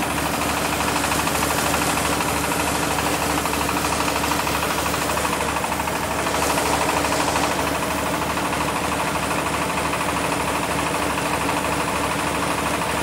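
Single-cylinder diesel engine running steadily with an even low pulse, driving a MAKTANI MT212 rice mill as it hulls paddy, with a steady hiss of grain and husk moving through the machine.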